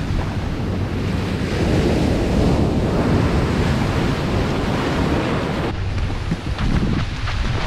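Ocean shore-break waves crashing and whitewater rushing around the camera, with heavy wind buffeting on the microphone. About two-thirds of the way through, the hiss of the surf cuts off abruptly, leaving mostly the low wind rumble.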